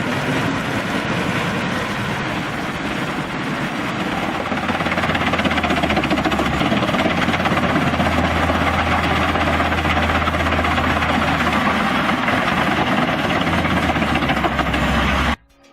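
Large engine-driven wood chipper running at work: steady, loud machine noise with a deep low hum that grows stronger about five seconds in. The sound cuts off suddenly just before the end.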